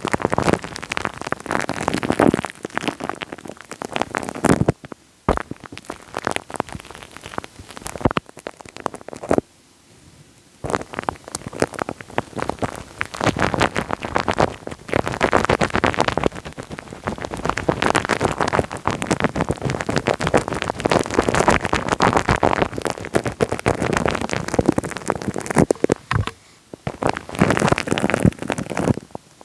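Wet, sticky crackling and popping made right on the microphone: a dense run of tiny clicks and squelches that stops briefly a few times.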